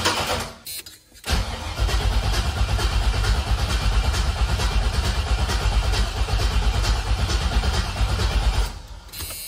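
GM 5.3 LS V8 being turned over by its starter without firing: an even, rhythmic cranking churn. It breaks off briefly about a second in, then cranks again for about seven seconds before stopping near the end. This is the swapped engine's first crank, run to build oil pressure before it is allowed to fire.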